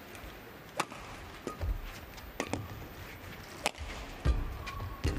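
Badminton rally: three sharp racket strikes on the shuttlecock, roughly one every second and a half, with the dull thuds of players' footsteps landing on the court in between.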